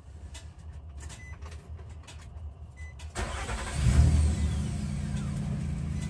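Truck engine starting about three seconds in, surging briefly, then settling into a steady idle.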